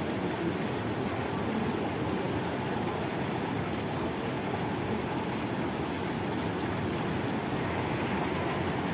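Natural hot spring water gushing from a pipe and splashing down onto a bather and into the pool: a steady rush of water.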